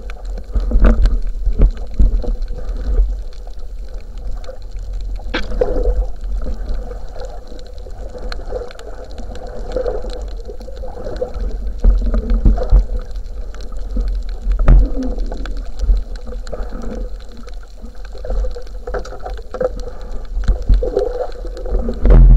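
Muffled underwater sound from a camera in a waterproof housing: a heavy, uneven low rumble of water moving past it, with scattered knocks and clicks.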